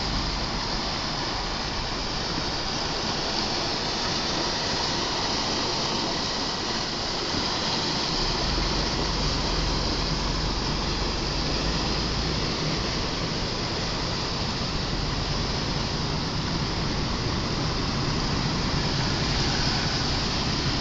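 Steady rush of fast-running floodwater pouring over a road culvert, heard from inside a car, with a low rumble of the car's engine and tyres growing stronger about a third of the way in as the car moves off.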